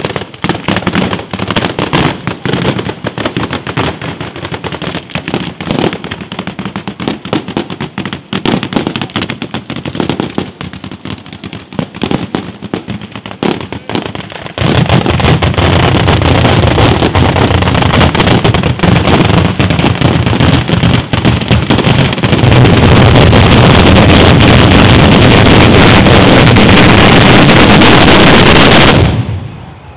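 Fireworks display: a dense, rapid crackle of firecracker bangs that about halfway through merges into a continuous, very loud barrage. It grows louder again a little later and then cuts off suddenly near the end.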